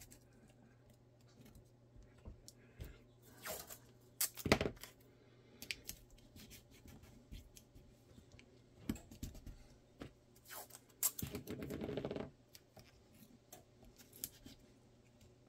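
Blue painter's tape being handled, torn and pressed down by fingers onto a holster mold: scattered light taps, rubs and crinkles, with one longer tearing rasp of about a second roughly three quarters of the way in.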